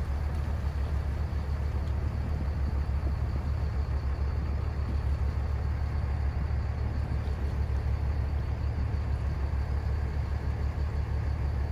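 Steady low rumble with a light even hiss above it, with no distinct events.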